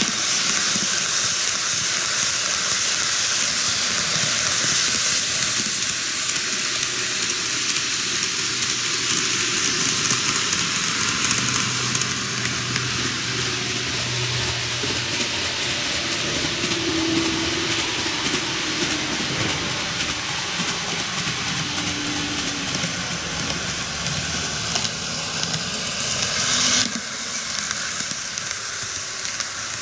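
TOMIX N-gauge model trains, an Odakyu 50000 series VSE and a 4000 series, running past on curved track: a steady running noise of their motors and wheels on the rails. A low hum comes in around the middle, and the noise drops suddenly near the end.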